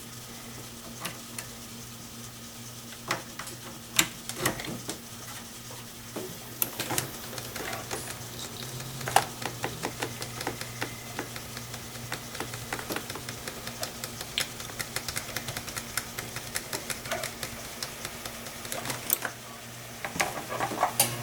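Irregular computer mouse clicks and keyboard taps, some louder than others, over a steady low electrical hum from the running PC.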